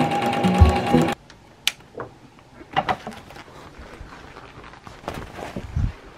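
Domestic sewing machine stitching through pleather, stopping abruptly about a second in. Then scattered light clicks and knocks of handling as things are moved about.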